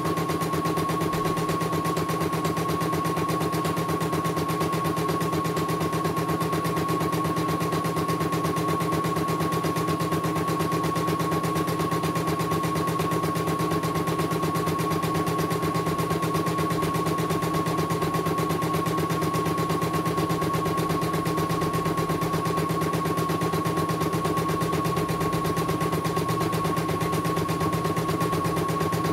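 CNY E900 portable computerized embroidery machine stitching a design: a rapid, even needle chatter at a steady pace, with a constant high tone from the machine running under it.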